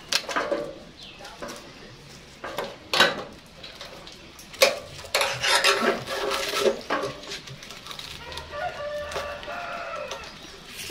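Sharp clicks and rustling from handling an orchid and loosening its tying string, the loudest clicks about three and four and a half seconds in. A chicken calls, a drawn-out call about eight to ten seconds in.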